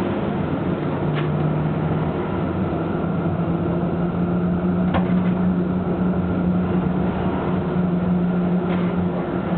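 Tram running, heard from inside the car: a steady low electric motor hum that steps slightly higher about a second in, over the rumble of the wheels on the rails, with three faint clicks spread through it.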